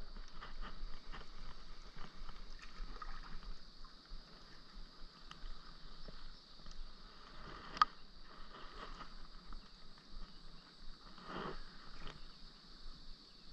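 A spinning reel being cranked as a small crappie is reeled up to the dock, with light water splashing and many small clicks. A sharp click comes about eight seconds in, followed by rustling handling noise as the fish is taken off the hook.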